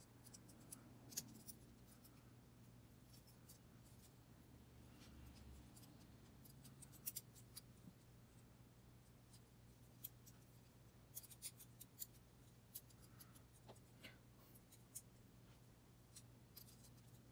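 Faint, scattered clicks and taps of small hard-plastic toy parts as Transformers Siege Micromaster figures are handled and snapped together into a combined weapon. The clicks come in clusters about a second in, around seven seconds in, and again from ten to fifteen seconds, over a faint steady hum.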